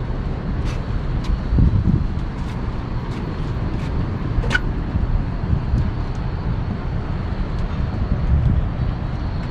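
Steady low rumble of wind on the microphone, with scattered light clicks and one short, sharp squeak about four and a half seconds in.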